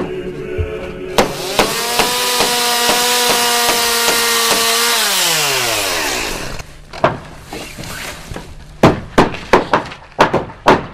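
A chainsaw runs at full throttle with a steady high note, then drops in pitch as the throttle is let off. Hammer blows on boards come before and after it: one at the start and a quick run of strikes in the last few seconds.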